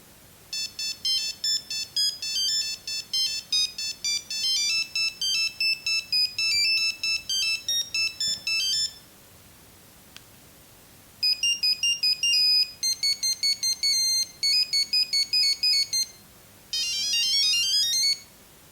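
Nokia 6310 mobile phone playing monophonic electronic ringtone melodies, one note at a time. A long fast run of beeping notes comes first, then a pause. A second beeping melody follows, and near the end there is a short quick run of rising notes.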